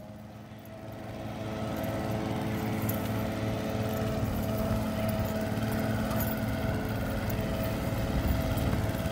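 Small engine of a child-sized Model T Ford replica kart running steadily. It grows louder over the first couple of seconds, then holds an even pitch.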